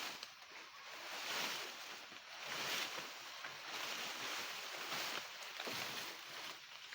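Dry maize stalks rustling and crackling as they are handled and stacked, a rustling that swells and fades every second or so.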